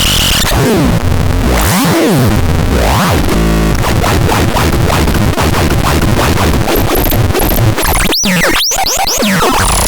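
Harsh electronic noise from the TADETRALOX, a dense loud texture with pitch sweeps gliding up and down, cut by two sudden brief dropouts near the end.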